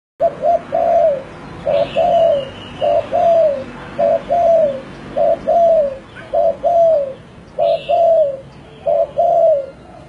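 Spotted dove cooing its song over and over: eight phrases, each one or two short coos followed by a longer coo that falls in pitch, about one phrase a second.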